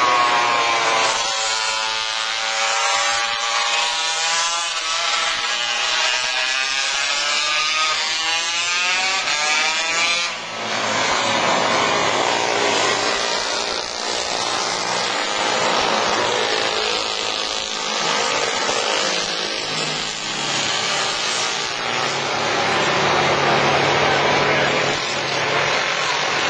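Several vintage racing motorcycles passing on a circuit, their engines buzzing and rising and falling in pitch as they rev through the gears. The sound drops out briefly about ten seconds in, then the engines blend into a rougher, noisier drone.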